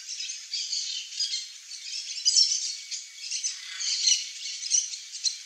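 Birds squawking and chattering: a dense, unbroken run of harsh, high calls.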